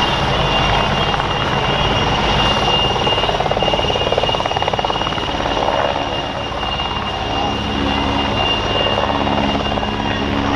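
PZL W-3 Sokol twin-engine helicopter hovering low and then climbing away. Its main rotor beats rapidly under a steady high turbine whine.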